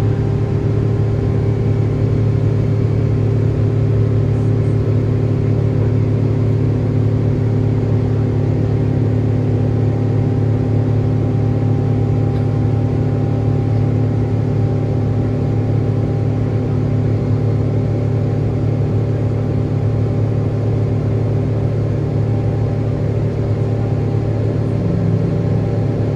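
Boeing 777-300ER's GE90 turbofan engines at full takeoff power: a loud, steady drone with a deep hum and a few constant tones, unchanging throughout.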